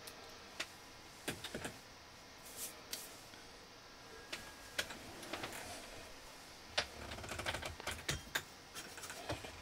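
Irregular light clicks and taps from small parts or tools being handled on a worktable: a few at first, then busier in the second half.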